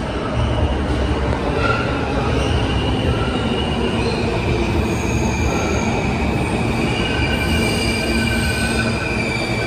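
R160 subway train pulling into the station and slowing: a steady low rumble from the wheels on the rails, with high-pitched wheel squeal from about two seconds in, several tones held together that slide slightly lower near the end.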